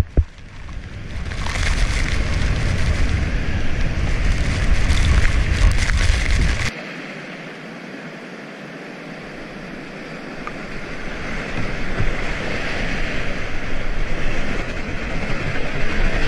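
Whitewater heard close up on an action camera. First the loud roar of a waterfall, with heavy low rumble that is typical of wind and spray buffeting the microphone. It cuts off suddenly to a quieter steady rush of river current, which grows louder as the kayak nears the rapid.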